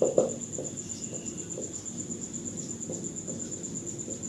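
Whiteboard marker writing in soft short strokes, with a brief thump right at the start. Behind it a steady, high, rapidly pulsing trill like a cricket runs without a break.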